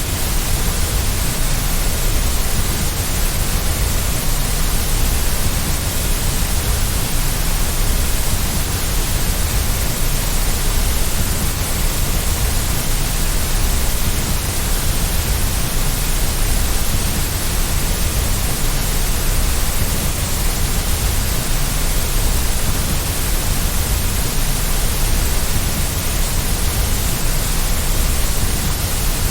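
Synthetic white noise: a steady, unchanging hiss with a strong low rumble underneath.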